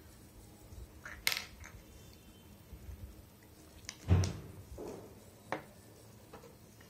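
Small hard clicks and clinks from a lipstick tube being handled in the hands, three times: once about a second in, once with a dull thump at about four seconds (the loudest), and once more shortly after.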